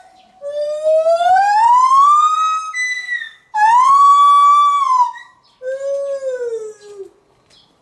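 White-handed gibbon calling: a long whooping note rising steadily in pitch, a short higher note, a long held high note, then a note that slides down, fading out about a second before the end.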